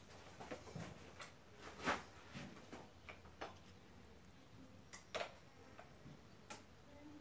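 Faint, irregular sharp clicks from a farrier's hand tools working on a horse's hoof, the loudest about two seconds in and again just past five seconds.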